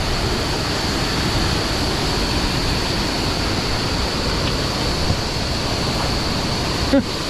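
Steady loud rush of a waterfall and fast water pouring over rock shoals.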